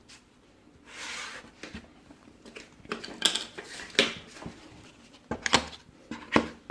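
Light knocks and clicks of small objects being handled and set down on a table, with a short rustle about a second in.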